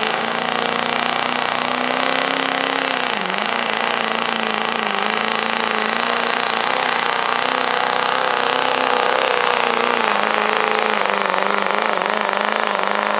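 Diesel 4x4 pickup engine at full throttle pulling a weight-transfer sled, held at high revs with a brief dip about three seconds in and again near ten seconds. A high whistle rises in the first second.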